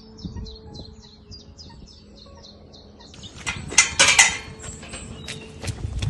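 A small bird singing a fast run of short, descending high notes for about three seconds. Then loud rustling and clattering with several sharp knocks takes over.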